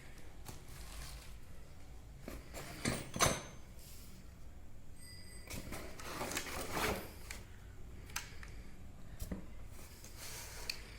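Faint knocks, clicks and rustling as boxed bicycle parts and accessories are handled, with sharper knocks about three seconds in and again around the middle.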